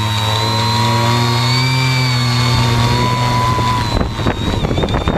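Hexacopter's six electric motors and propellers running with a steady whine whose pitch wavers slightly. About four seconds in, as the craft comes down close to the snow, the whine fades and gives way to irregular crackling noise.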